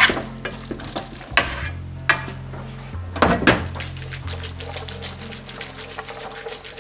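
Spaghetti being stirred with a wooden fork and tossed in a nonstick frying pan with a splash of pasta cooking water, to coat it in the butter-and-anchovy sauce: scraping and several sharp clatters, the loudest a few seconds in, then a run of quick light ticks. Soft background music plays underneath.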